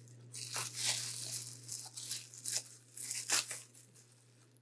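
Plastic bubble wrap crinkling and rustling in quick bursts as it is pulled off a ceramic bowl, dying away near the end.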